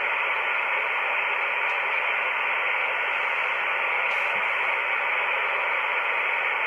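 Steady band hiss from an Icom IC-718 HF transceiver's speaker, tuned to 7.172 MHz lower sideband on 40 meters with no station coming through. Only static is heard because the other station cannot be received: the operator puts it down to long skip with the stations too close together.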